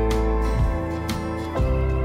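Instrumental background music: pitched notes changing about twice a second over light, regular percussive strokes.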